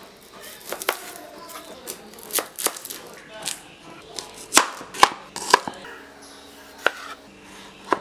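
Large knife chopping through shallots (small red onions), the blade knocking down onto the cutting board in about ten sharp, irregularly spaced cuts, the loudest three coming in quick succession about halfway through.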